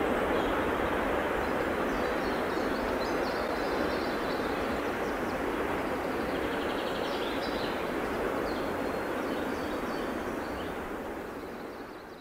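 A freight train of tank cars running away on the rails, a steady rumble that slowly weakens and fades out near the end.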